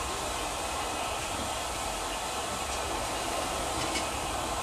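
BR Class 33 diesel locomotive with its Sulzer engine running as it approaches slowly, heard as a steady, even noise.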